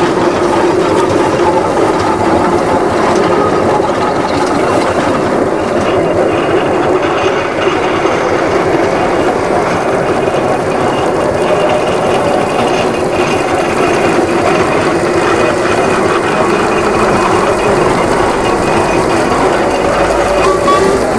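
Steady mechanical whirring and clicking of small running model machinery, like gears and mechanisms turning without a break.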